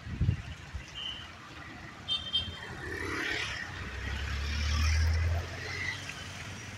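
Busy street traffic: engines and tyres, with two brief high beeps about one and two seconds in. A low engine rumble swells between about four and five and a half seconds as a vehicle passes close.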